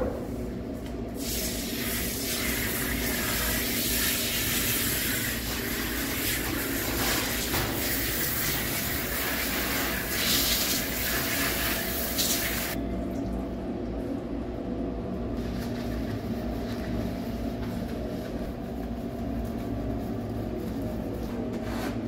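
Pull-down hand sprayer spraying water onto a small dog in a stainless steel grooming tub: a loud, steady hiss that starts about a second in and cuts off about halfway through. A steady low hum runs underneath.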